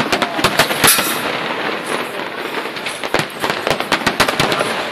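Aerial firework shells bursting in a dense barrage: a rapid, uneven run of sharp bangs and crackling, the loudest bang about a second in.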